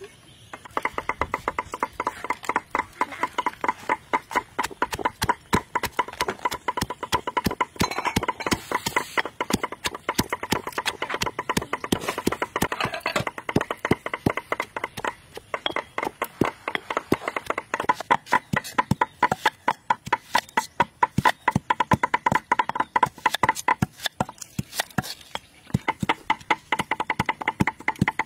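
Pestle pounding in a stone mortar: rapid, uneven knocks several a second, with a ringing tone running under the blows.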